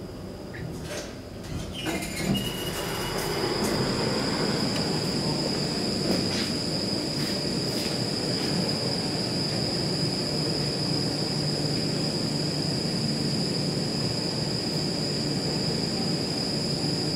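Metro train in the station: after a few clicks, the noise builds over a couple of seconds into a steady rumble with a steady high whine on top.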